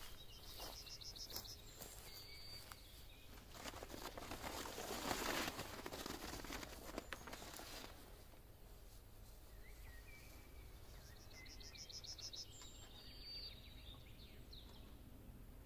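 Faint rustling of an Alu-Cab Shadow 270° awning's canvas as it is swung open by hand, swelling about four to eight seconds in. Birds chirp now and then in the background.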